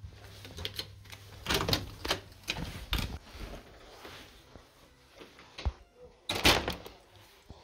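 Clicks and knocks from a hotel room door's handle and latch as it is opened and passed through, with a louder thud about six seconds in.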